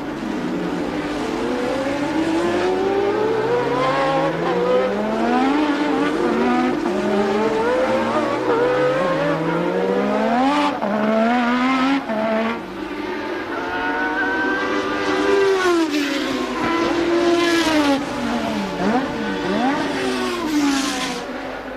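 1988 Formula One race car engine at high revs, its pitch climbing again and again through several gear changes. Near the end it settles at high pitch, then drops and blips sharply as if downshifting.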